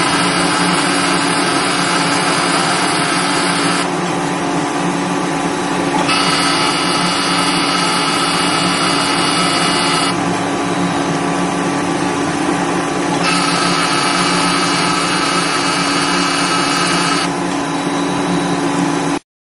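Laser skin-resurfacing machine running with a steady electrical hum and whine. A higher whine comes in for about four seconds at a time, three times, and the sound cuts off suddenly near the end.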